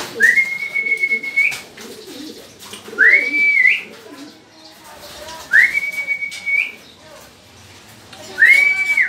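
A person whistling four times to call a racing pigeon down into the loft. Each whistle slides up into a held high note that flicks upward at the end.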